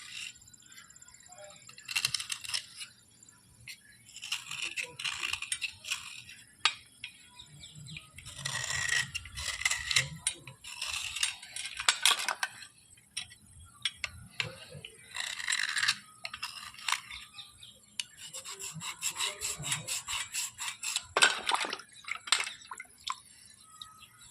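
Scraping and brushing strokes on hard bars as they are cleaned, coming in short bouts with pauses between, including a quick run of rapid scratchy strokes about three quarters of the way through, and a few light clinks.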